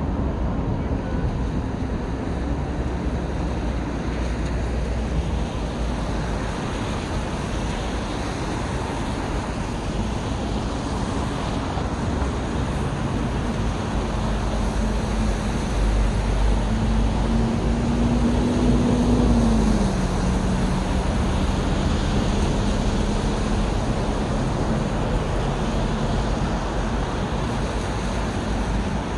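Steady city road-traffic noise, with one vehicle's engine hum that slowly sinks in pitch, grows louder about two-thirds of the way through, then drops lower.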